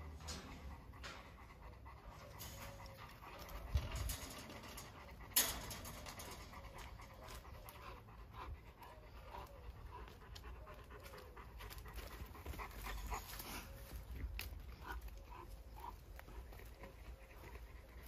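Dogs panting steadily, with two sharp knocks about a second and a half apart a few seconds in.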